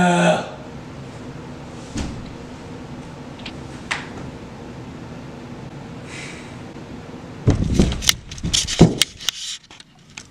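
The end of a loud shouted 'woo' at the very start, then quiet room tone broken by two single clicks. From about seven and a half seconds in comes a cluster of knocks, bumps and rustles: handling noise as the camera is picked up and moved against the window.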